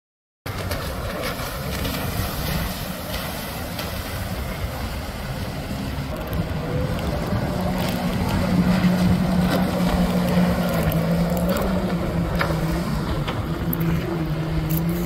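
Jet ski engines running at speed over steady rushing wind and water noise; a steady engine note comes up about halfway through and gets louder.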